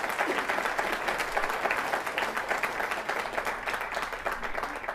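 Audience applauding, a dense patter of many hands clapping that thins out a little near the end.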